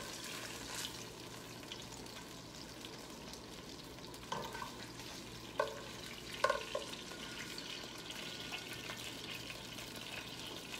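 Butter and olive oil sizzling in a hot skillet after searing chicken thighs, with a few short clinks of a utensil against the pan and crock, about four to six and a half seconds in.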